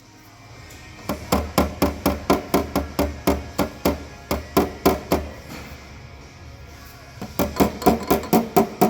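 Hammer tapping on the sheet metal of a car's quarter panel, about three to four strikes a second, each ringing briefly: body work to beat out the damage. The hammering pauses for about two seconds, then starts again a little faster near the end.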